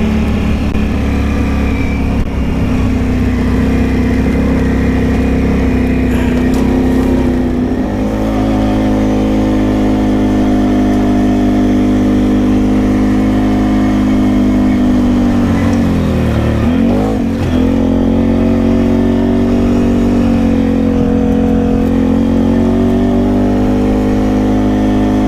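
Can-Am Outlander ATV engine running steadily while riding. Its note shifts about eight seconds in, and around sixteen seconds it dips briefly and comes back up.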